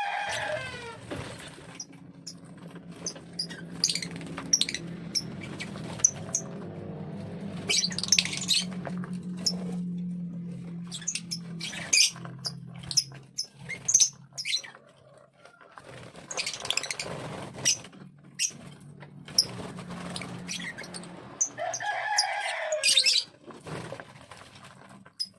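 Lovebirds giving many short, shrill chirps over a steady low hum. Near the end a rooster crows once, with a falling call.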